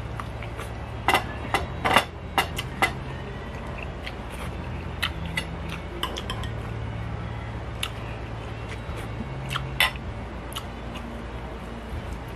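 Sharp clinks and taps of a spoon and dishes on a ceramic plate during a meal: a quick cluster of them in the first few seconds, a few more later, over a low steady hum.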